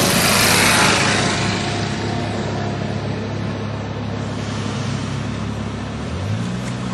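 Kintetsu electric train passing the level crossing and pulling away: its rushing noise is loud for about a second, then fades, leaving a steady low hum. About six seconds in, a new low drone starts.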